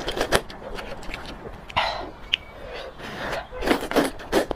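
A person slurping spicy rice noodles: a series of short, noisy sucks with a longer slurp about two seconds in and wet mouth clicks in between.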